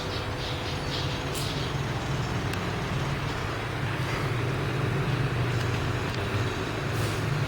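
Drilling machine running with a steady low drone.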